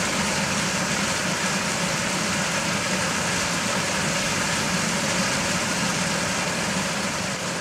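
Turbulent white water rushing and churning, a steady unbroken noise.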